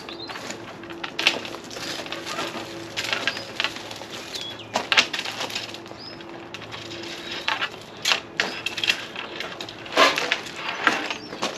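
Irregular knocks, clicks and clatter from hand-working the fittings on a wooden sailing-boat mast, loudest about a second in, around five seconds in, and at eight and ten seconds. Small birds chirp now and then in the background.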